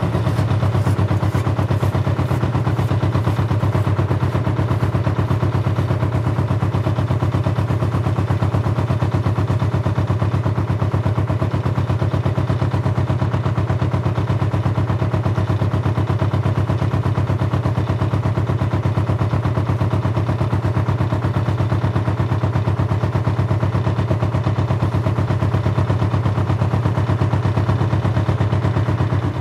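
Canal narrowboat's engine running steadily under way, heard on board: a low, even, rapid beat that holds constant.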